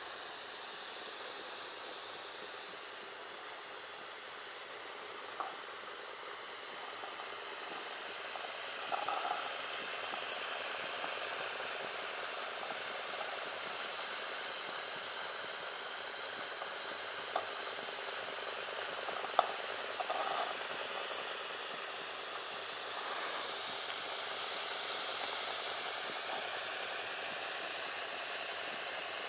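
Wilesco D14 model steam engine running, with a steady hiss of escaping steam that swells louder in the middle and eases toward the end. A few faint ticks sound now and then.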